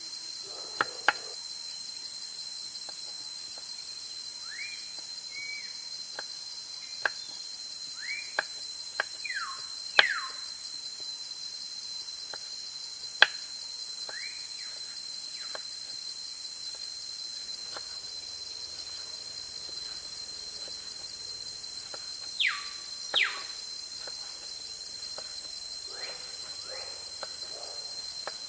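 Insects droning steadily at a high pitch, with birds calling in short whistles, two of them falling sharply near the end. Now and then a sharp knock or click is heard.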